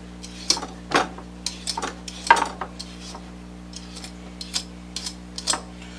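Hand-held carrot peeler scraping the hard skin off a raw butternut squash in short, irregular strokes, about two or three a second, with a brief lull around three seconds in.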